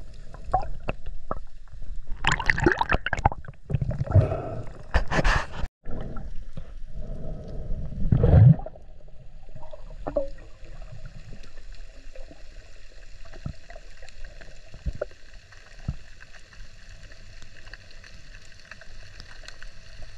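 Water gurgling and sloshing around an underwater camera, in loud uneven gushes for the first several seconds, then settling to a fainter steady underwater hiss.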